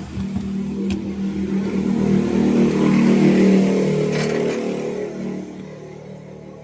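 A motor vehicle engine passing by, growing louder to a peak midway and then fading away.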